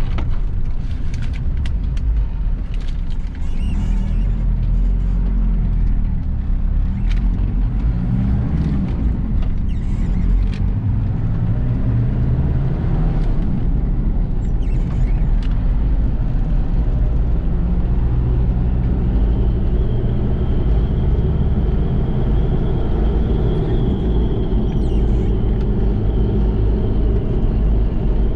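Mitsubishi Pajero's 4D56 turbo-diesel four-cylinder engine pulling the vehicle on the move, its revs rising and falling early on, then holding steady. A thin high whine joins in over the last third.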